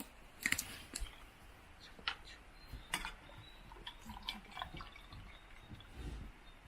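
Faint, scattered light clicks and taps of cookware being handled, about half a dozen over a few seconds, as rice is measured into a small camping cooker.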